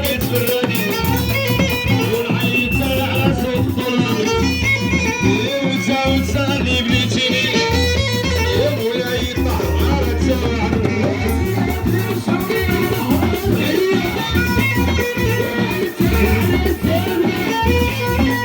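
Live Moroccan popular music played loud: violin and plucked strings over a steady percussion beat.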